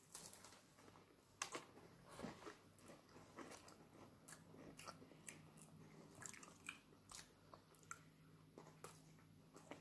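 Faint crunchy chewing of a round biscuit topped with Swedish hard cheese: a string of soft, irregular crunches.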